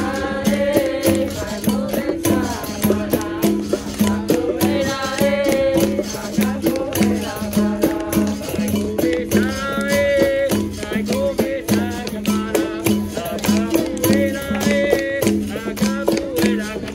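Live capoeira roda music: a berimbau and caxixi rattle keep a steady, repeating two-note rhythm under hand percussion and sung lines from the players.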